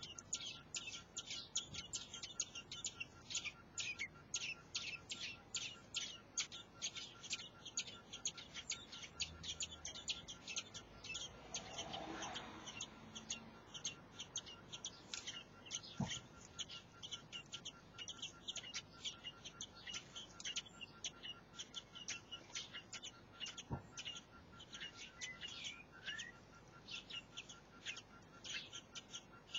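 Common blackbird nestlings begging: a steady stream of thin, high cheeps, about three a second, as the parent feeds them at the nest.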